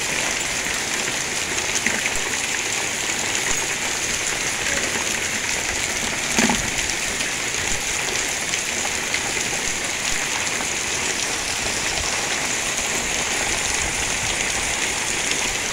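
Hailstorm: a dense, steady patter of hail and rain hitting the lawn, a patio table and tarp-covered items, with a single louder knock about six and a half seconds in.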